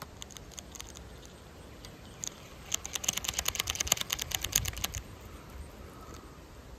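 Fishing reel being cranked, a rapid run of sharp clicks at about nine a second lasting about two seconds in the middle, with a few scattered clicks before it.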